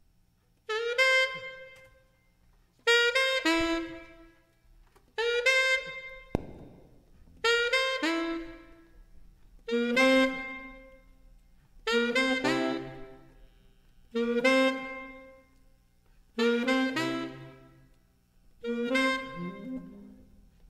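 Jazz horn section of saxophones and brass playing a slow series of held chords, nine in all about two seconds apart, each starting together and fading away before the next.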